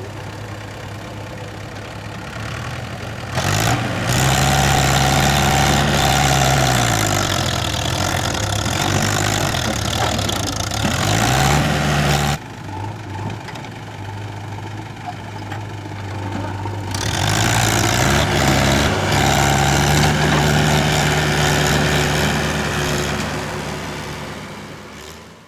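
Diesel engines of a Mahindra 475 DI tractor and a JCB 3DX backhoe loader revving hard under load as they strain to free a loaded trolley stuck in mud. The engine note surges twice, for several seconds each time, with the pitch rising and falling. Between the surges it drops back suddenly to a lower, steady run, and it fades out at the end.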